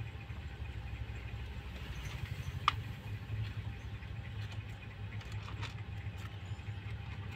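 Cat purring in a steady low rumble, close up, as a kitten nurses, with small wet clicks of suckling over it; one sharper click comes about two and a half seconds in.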